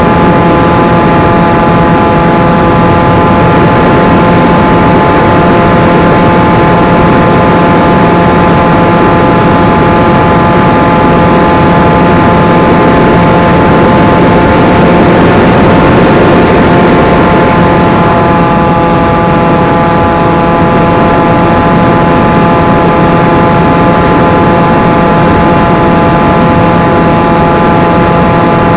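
Electric motor and propeller of a 1 m foam flying wing, heard from the onboard camera: a loud, steady whine with heavy wind rush over the microphone. The pitch holds nearly constant, swelling slightly about halfway through.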